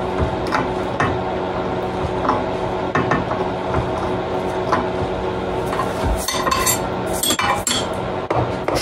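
Metal clinks and scrapes of a hand tool working the drilled holes of a metal plate, scattered at first and busiest from about six to eight seconds in, over a steady low hum.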